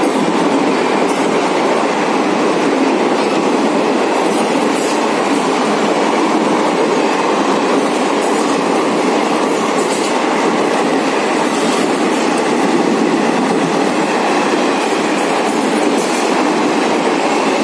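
Blue passenger coaches of an Indian Railways express train passing at speed close by: a loud, steady rumble and rush of steel wheels on the rails, with scattered sharp clicks from the wheels.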